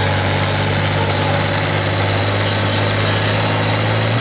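Tractor-pull tractor's diesel engine running flat out under heavy load while dragging a weight-transfer sled, a steady drone that drops off suddenly at the very end as the pull comes to a stop.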